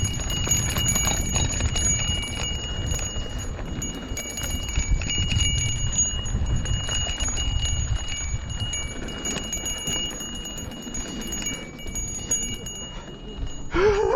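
Handlebar bell on a Lime rental ride rung over and over, its high ring held on almost without a break, over low wind and road rumble. The ringing stops near the end.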